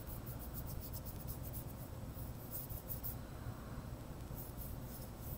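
Watercolor brush stroking wet paint across paper, faint short scratchy strokes in a few brief runs, over a low steady background hum.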